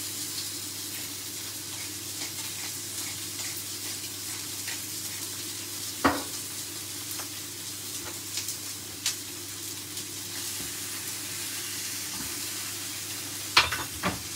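Beef steak searing in a very hot frying pan in its own rendered fat, a steady sizzle. A sharp knock about six seconds in and a few more clatters near the end.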